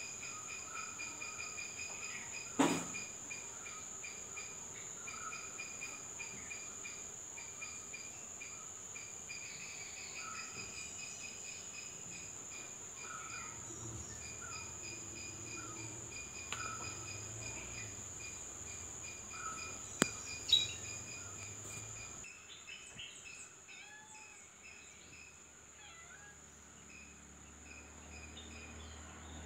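Insects trilling: a steady high-pitched trill with a fast pulsing chirp repeating alongside. Two sharp clicks stand out, a few seconds in and about twenty seconds in, and the background turns quieter just after the second click.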